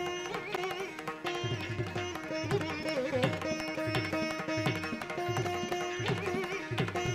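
Indian classical instrumental background music: a plucked string melody with bending notes over a steady pattern of hand-drum strokes.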